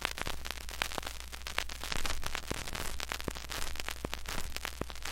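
1950s stock recording of crowd applause: many hands clapping in a dense, crackly patter over a steady low mains hum. The applause stops abruptly right at the end.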